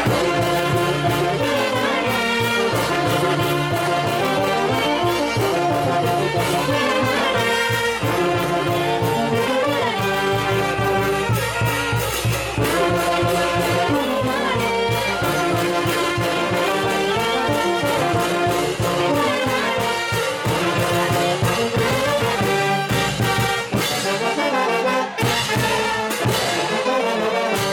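Brass band playing a lively dance tune, trumpets and trombones carrying the melody over a steady beat.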